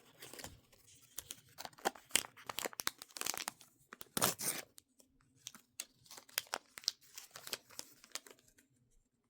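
Thin plastic packaging being crinkled and torn open by hand, a run of short crackles and rustles that thins out about halfway through.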